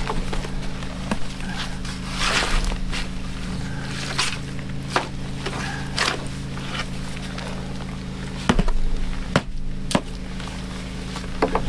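Shovel work in wet dirt with footsteps on soft ground: irregular scrapes, knocks and squelches, over a steady low hum.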